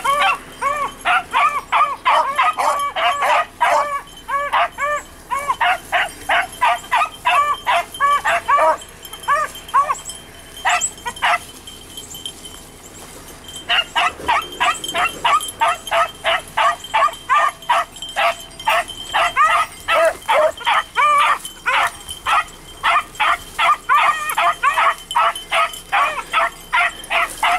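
Beagles baying in a fast, continuous string of barks. The barking stops for about two seconds near the middle, then starts up again.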